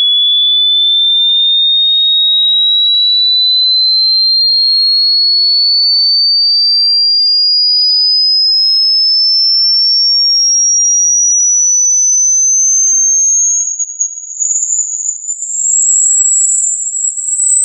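A single pure electronic sine tone gliding slowly and steadily upward in pitch from a high whistle to a very high one: a hearing-test frequency sweep for finding the upper limit of one's hearing. About three quarters of the way through, the tone starts to waver in loudness.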